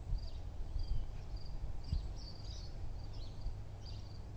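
Insect chirping in short, even pulses about every half second, over a steady low outdoor rumble.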